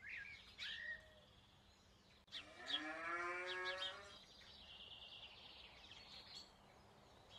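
A cow mooing once, one long call of about a second and a half, with faint bird chirps around it.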